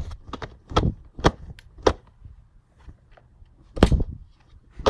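About five dull thumps at uneven spacing, made with socks.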